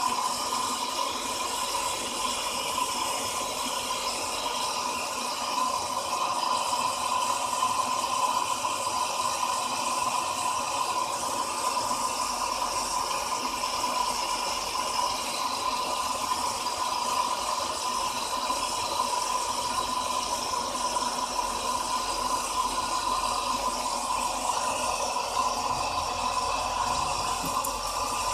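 A continuous buzzing rattle from a 2006 Hummer H3's electrics, which starts when the battery is connected and holds steady throughout. It is a fault sign in an H3 that also won't turn over.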